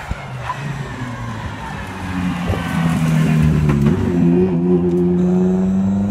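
Turbocharged RX3 rallycross race car engine running close by, its pitch shifting up and down and then holding steady, louder in the second half, with a couple of sharp cracks.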